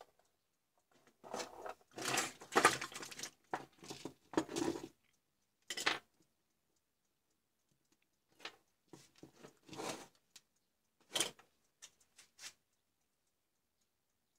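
Multimeter test leads and a charger cable being handled on a workbench: irregular clatter, clicks and rustling of plastic and metal, in a few clusters.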